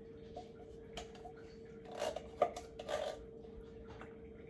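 Drained canned beans being tipped from a can into an Instant Pot: a few soft scraping and sliding sounds, busiest around two to three seconds in with one sharp click, over a faint steady hum.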